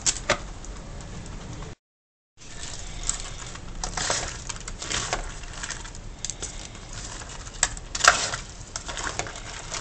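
Spatula scraping and knocking against a wok as crab pieces in chilli sauce are stirred and turned, in irregular strokes over a steady low background. The sound cuts out completely for about half a second near two seconds in.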